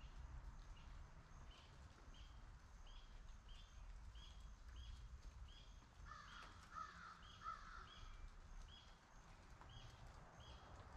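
A crow cawing three times, about six seconds in. Under it a small bird repeats a short high chip about twice a second, with a faint low rumble behind.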